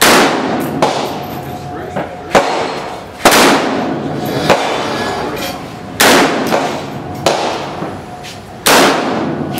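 AK-pattern semi-automatic rifle fired slow and aimed from a bench rest: four shots about three seconds apart, each with a long echoing decay, and fainter sharp cracks between them.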